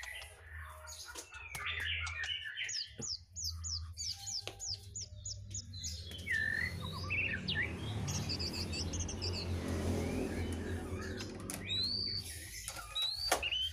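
Small songbirds chirping: about a second in, a quick run of a dozen short high chirps, then scattered chirps and whistled calls. A few sharp knocks and a steady hiss in the middle sit underneath.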